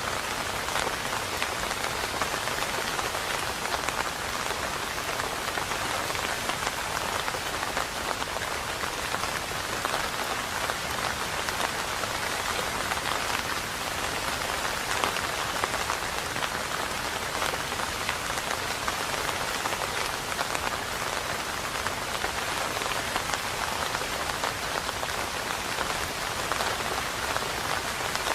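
Steady rain falling: an even, unbroken hiss with a fine pattering of individual drops, no thunder.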